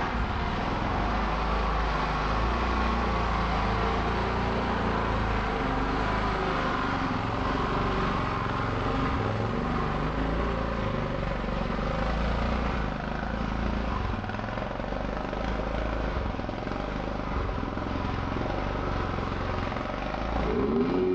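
Dirt bike engine under hard throttle climbing a steep dirt hill, played back in slow motion so the engine note is drawn out into a steady, low drone.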